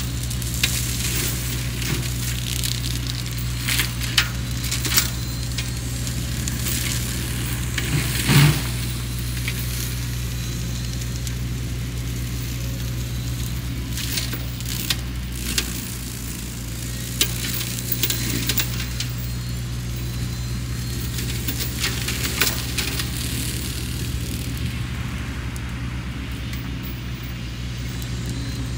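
Sany SY50U mini excavator's diesel engine running steadily while its Mongo flail mulcher head cuts brush, with scattered sharp cracks and snaps as the flails chip wood; the loudest crack comes about eight seconds in.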